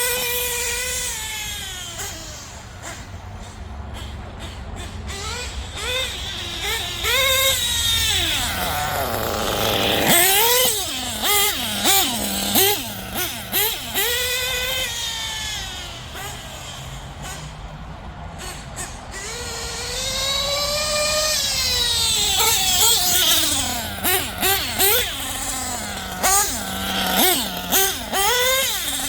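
LRP nitro engine of a radio-controlled buggy running, its high-pitched whine rising and falling again and again as the throttle opens and closes. It is loudest about ten seconds in and again through the last several seconds.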